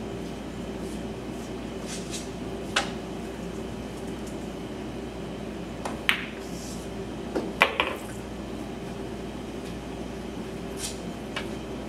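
Pool shot: a cue tip strikes the cue ball about six seconds in, followed a second and a half later by a quick cluster of sharp ball-on-ball clacks, the loudest sounds here. A single sharp click comes about three seconds in, over a steady room hum.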